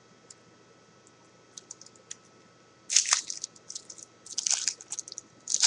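Trading card pack wrapper crinkling and crackling as it is handled and pulled at to open it, in several short bursts starting about three seconds in, after a few faint clicks.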